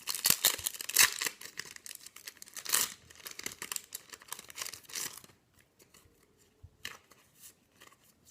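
Trading-card booster pack wrapper being torn open and crinkled, with rustling for about five seconds, then only a few faint clicks and rustles.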